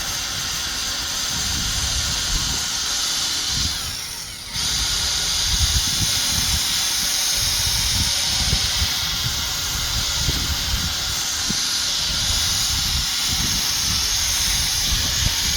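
Power tool spinning a buffing pad, whirring steadily as it polishes rubbing compound into a plastic headlight lens, with uneven low rubbing rumble under it. About four seconds in it winds down briefly and then starts up again abruptly.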